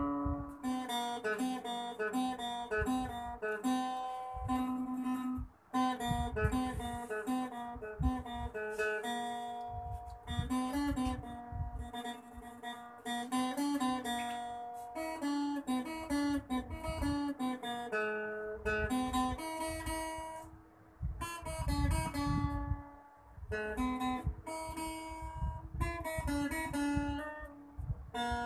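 Solo steel-string acoustic guitar picking out a melody over bass notes, with a few short breaks between phrases.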